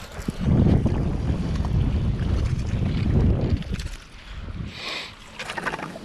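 Wind buffeting the microphone in loud, uneven low rumbles for about three seconds, then easing off, with a short hiss about five seconds in.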